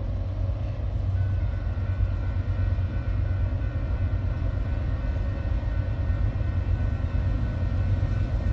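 Union Pacific diesel-electric freight locomotive approaching at the head of a container train, its engine giving a steady low rumble. A thin, steady high whine joins about a second in.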